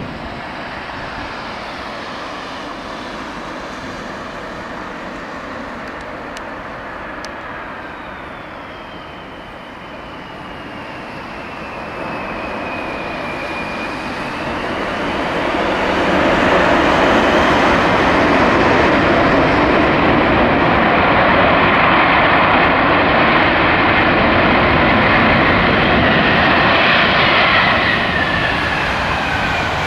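Boeing 747-400's four jet engines whining on landing, the whine falling in pitch. About halfway through a much louder rushing roar sets in as reverse thrust is applied on the wet runway during the landing roll, holding steady and then easing off near the end.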